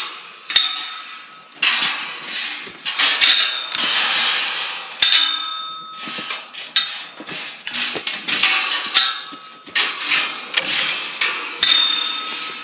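Metal tube-frame gate with a wire-mesh panel clanking and rattling as it is handled and set against a tree trunk: many irregular sharp metallic knocks, several ringing briefly.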